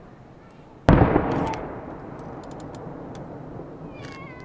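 Aerial firework shell bursting about a second in: one sharp boom that echoes and fades over about a second, followed by a few scattered crackles.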